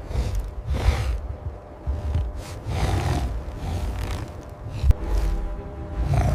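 Dark cinematic film score: a deep low rumble with repeated whooshing swells and a sharp hit about five seconds in.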